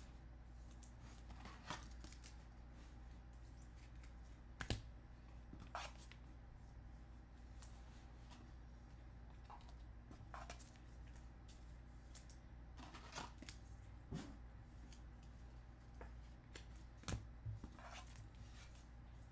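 Faint handling of baseball trading cards: soft, scattered clicks and rustles every second or two over a steady low hum.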